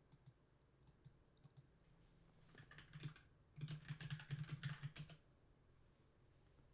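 Faint typing on a computer keyboard: a few scattered keystrokes, then two quick runs of rapid key clicks about two and a half and three and a half seconds in.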